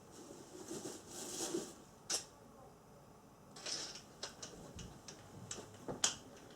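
Small parts and tools being handled: soft rustling, a single sharp click, then a string of light clicks and taps.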